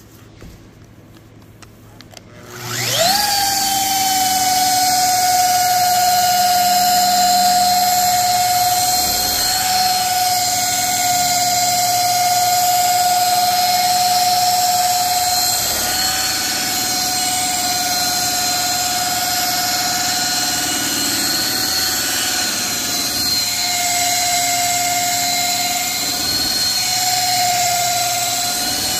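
Electric polisher with a wool buffing pad spinning up with a quick rising whine about three seconds in, then running steadily at low speed with a steady whine, its pitch dipping slightly now and then as the pad loads up while cutting compound on color-sanded paint.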